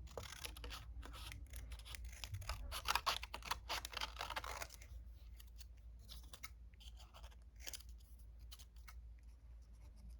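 Scissors snipping through a strip of paper, cutting out small shapes. A dense run of quick snips for about five seconds, then scattered, softer snips and paper rustles.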